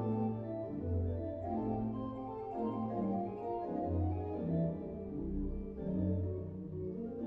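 Kegg pipe organ playing music: held chords over pedal bass notes that change about once a second.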